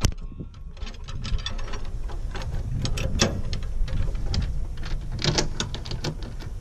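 Irregular small metallic clicks and rattles as a chrome stabilising rod is fitted and fastened into its mounting on the side of a camper trailer, over a low rumble.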